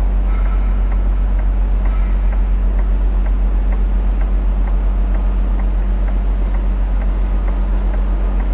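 Diesel truck engine idling steadily with an even low throb, and a light ticking repeating at a regular pace.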